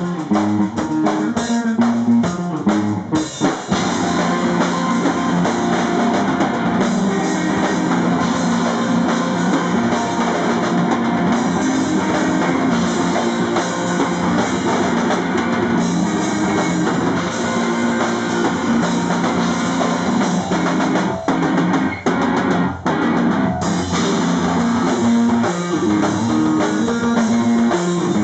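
Live rock band playing loudly, a drum kit with guitar: choppy stop-start hits for the first few seconds, then a continuous dense wall of drums and guitar.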